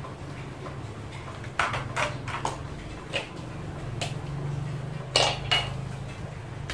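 Clicks and clinks of small hard objects being handled: a quick cluster of four, then single ones, and two near the end, over a steady low hum.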